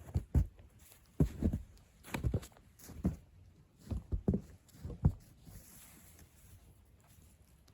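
Footsteps in snow: about a dozen uneven thudding steps at walking pace, stopping about five seconds in.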